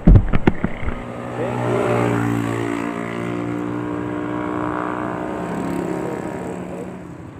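A few sharp knocks in the first second, then a motorcycle engine running. It grows louder over a couple of seconds and fades away toward the end.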